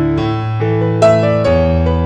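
Background music: piano or electric piano playing notes and chords that strike and fade, a new note about every half second to second.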